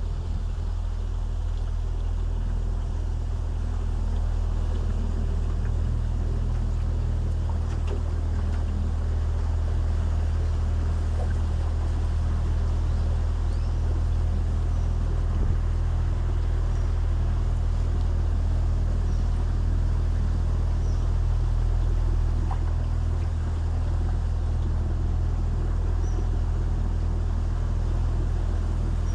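Boat motor running at a steady speed, a constant low hum with no change in pitch.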